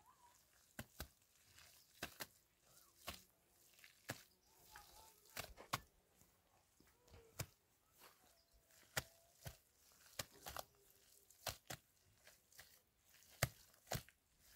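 Knife cutting food on a board: irregular sharp knocks, about one or two a second.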